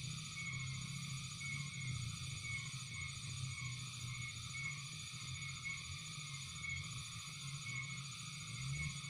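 Frogs and insects calling together: a steady low chorus, a short chirp repeating about twice a second, and a high continuous insect trill.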